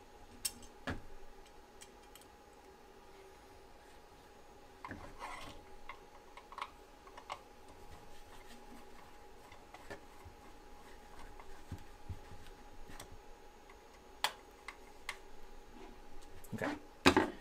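Light scattered metal clicks and scrapes as a hex key turns a small screw to fasten a sheet-metal filament holder bracket to a 3D printer's frame, with a sharper clack near the end.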